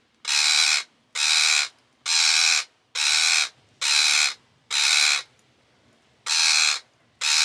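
Rose-ringed parakeet screeching in distress: about eight harsh, loud screeches, roughly one a second, with a pause of about a second past the middle, as the bird is held and cut free from netting tangled around its body.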